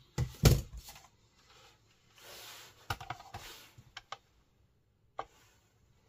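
Handling noises: a heavy thump near the start, then rustling and a few sharp clicks, with one more click near the end.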